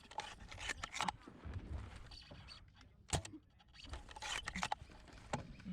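Two sharp snaps of airsoft gunfire, about three and five seconds in, between stretches of rustling noise.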